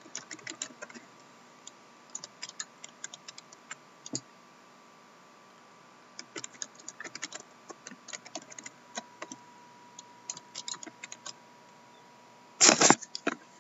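Typing on a computer keyboard in short runs of key clicks with pauses between, and a single knock about four seconds in. About a second before the end there is a loud half-second rustle of the camera being handled.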